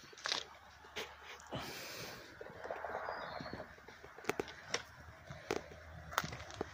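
Footsteps walking on a path, about one step every half second to a second, with a hiss of wind on the microphone.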